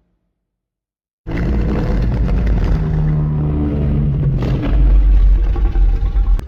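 Custom-made Godzilla roar sound effect: after about a second of silence it starts abruptly and runs loud and sustained, with a deep low end.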